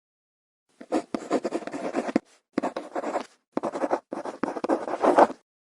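Scratching and rubbing in four stretches separated by short pauses, starting about a second in and stopping shortly before the end.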